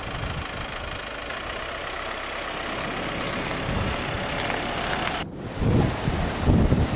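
Strong wind rushing over the microphone with choppy sea behind it, an even noise. About five seconds in it changes to heavier, gusty buffeting of the microphone with surf.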